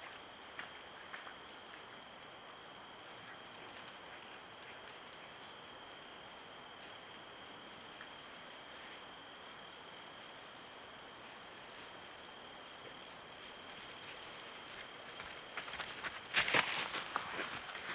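Steady high-pitched chorus of crickets. About two seconds before the end a white-tailed deer bounds in over the grass, a quick run of hoof thuds that is the loudest sound.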